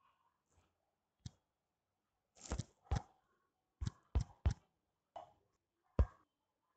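Fingertip taps on a smartphone touchscreen while typing on the on-screen keyboard, picked up through the phone's own microphone: about eight short, irregularly spaced knocks.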